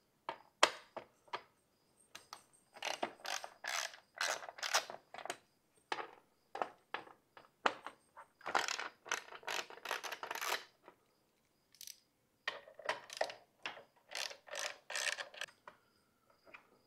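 Small hand ratchet clicking as it works a 6 mm bolt loose: three runs of rapid pawl clicks, with scattered single clicks between them.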